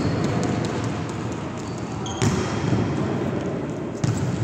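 A volleyball being struck during a rally in a gym: two sharp smacks, one about two seconds in and another near the end, each ringing briefly in the hall over steady background noise.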